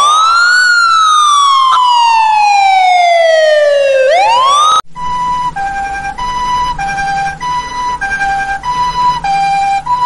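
Ambulance sirens. First an electronic wail rises quickly, falls slowly over about three and a half seconds, and starts to rise again before it cuts off about five seconds in. Then a two-tone siren alternates between a high and a low note, switching about every half second.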